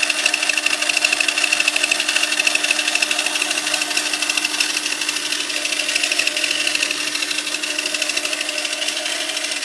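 Toy RC cars' small electric drive motors and gears running, a steady whirring with a fast, even rattle and a high whine.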